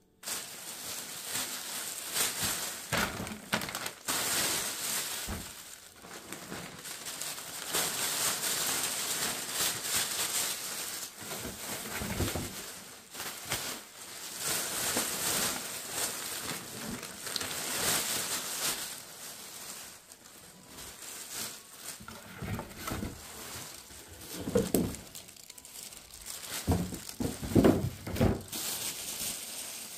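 Clear plastic packaging crinkling and rustling as it is handled and pulled open. A few louder bumps of handling come near the end.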